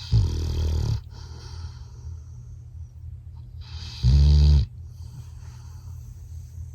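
Labrador Retriever snoring in its sleep: two loud snores, each under a second long, about four seconds apart.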